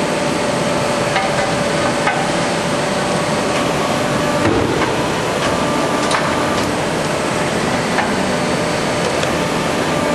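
CNC punching machine running through its cycle: a steady mechanical noise with a few sharp knocks from the punch strokes.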